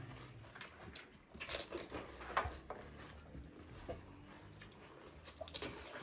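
Irregular crunches and clicks of people eating pani puri: crisp, hollow puri shells breaking as they are bitten and chewed, a few louder crunches among fainter ones.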